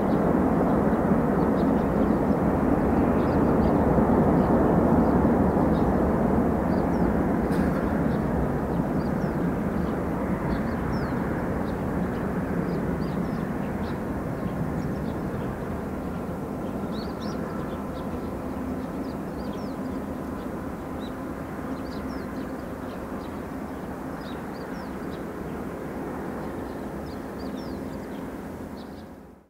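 Boeing 747-400 freighter's four jet engines on the landing rollout, a loud steady rush that peaks about four seconds in and then fades slowly as the aircraft rolls away, with faint high chirps throughout; the sound cuts off suddenly at the end.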